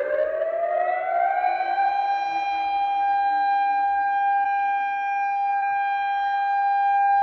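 Civil defense siren sounding an alarm. It finishes winding up, rising in pitch over the first second or so, then holds one steady wailing tone.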